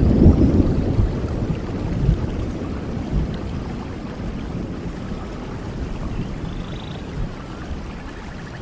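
Rolling thunder, loudest in the first second and dying away over the next several seconds, over steady rain in a rainforest.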